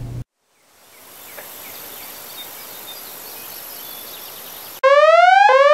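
Faint outdoor ambience with a few soft chirps. Near the end a loud electronic whooping tone cuts in, each rising sweep lasting under a second before it drops back and starts again.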